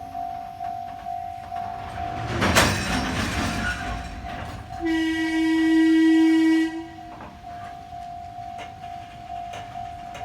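A level-crossing warning bell rings steadily in a pulsing tone. About two and a half seconds in there is a sudden loud burst, and from about five seconds in a train horn sounds one steady blast lasting about two seconds.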